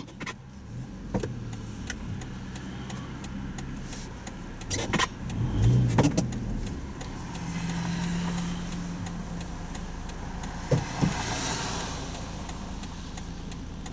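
Engine and road noise of a vehicle being driven, heard from inside the cabin: a steady low hum with a few sharp knocks about five, six and eleven seconds in.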